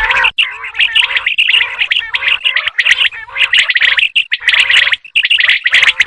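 Common quail calling: a rapid, dense stream of chirping, chattering notes with a few brief pauses.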